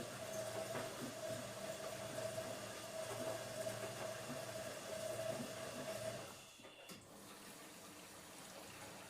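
Automatic washing machine on its wash cycle: a steady motor hum over water swishing in the drum. About six seconds in the hum stops and the sound falls quieter.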